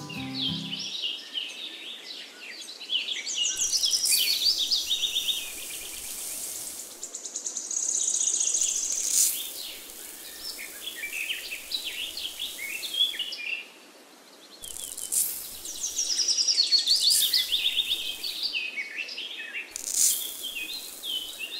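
Small birds chirping and twittering throughout, with several bursts of hissing as dry sand is poured from a metal bowl.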